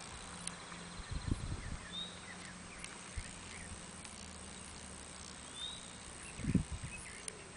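Quiet outdoor background hiss with a few faint, short high chirps and two brief low thumps, one about a second in and one near the end.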